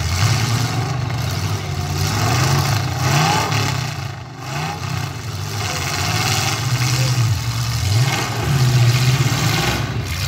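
Demolition-derby car engines revving hard and unevenly, the engine note rising and falling again and again as the wrecked cars push against each other.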